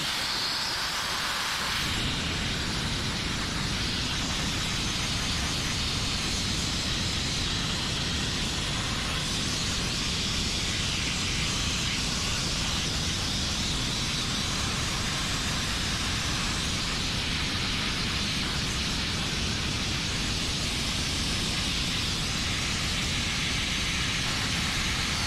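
Sandblasting nozzle blasting abrasive with compressed air onto chrome-plated aluminium motorcycle parts, a steady hiss with a low rumble underneath from about two seconds in. The blast is stripping the flaking chrome and nickel plating off the parts.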